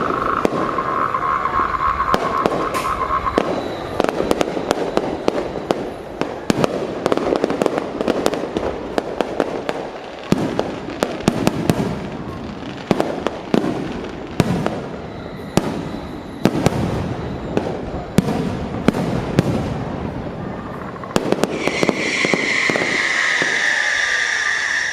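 Aerial fireworks bursting in quick succession, dense bangs and crackling over a continuous rumble. A held high tone sounds for the first few seconds, and a louder high tone, gently falling, comes in near the end.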